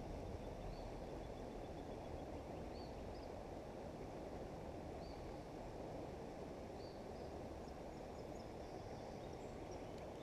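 Faint, steady outdoor background noise with short, high bird chirps now and then.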